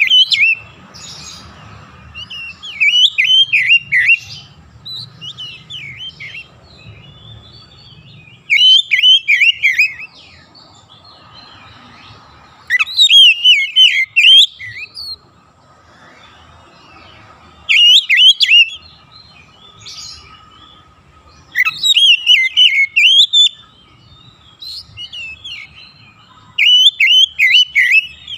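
Oriental magpie-robin singing: loud phrases of rapid whistled notes, each a second or two long, repeated every four to five seconds. A faint steady tone carries on between the phrases.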